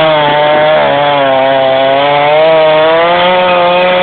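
Two-stroke chainsaw held at steady high revs, cutting through the wood of a horse chestnut tree being felled.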